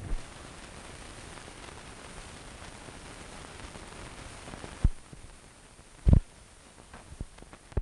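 Steady hiss and hum of an old newsreel sound track, which drops off suddenly at a knock almost five seconds in, followed by a single short thump about a second later and a few faint clicks.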